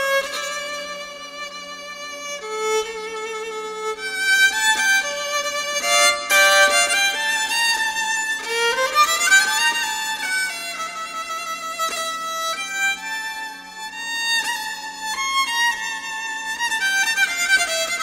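Instrumental music: a melody of held notes that change pitch often, with upward slides about halfway through, over a steady low drone.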